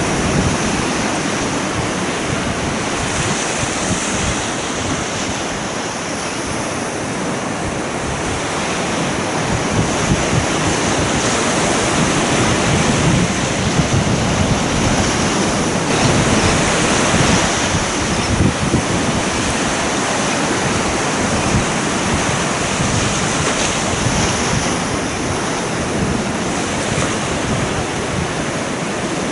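Ocean surf breaking and washing up a sandy beach, a steady rush that swells a little in the middle, with wind buffeting the microphone.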